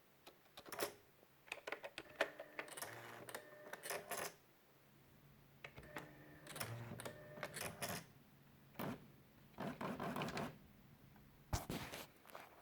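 Brother EP150 thermal electronic typewriter being typed on, quiet and smooth: clusters of soft key clicks, with several stretches of about a second of its small mechanism motor whirring in between.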